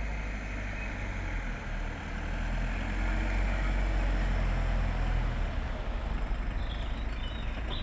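Minibus engine running as the bus drives slowly past at close range, a steady low rumble that grows louder as it draws near.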